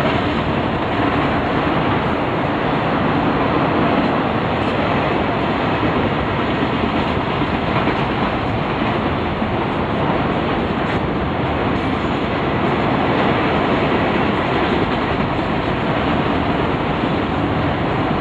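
Freight train of autorack cars rolling past: a steady, loud noise of steel wheels running on the rails.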